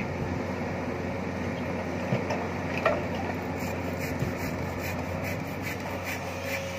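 Komatsu PC200-8 excavator's six-cylinder diesel engine running steadily under load while the boom and bucket dig, with scattered short knocks and clicks from the digging.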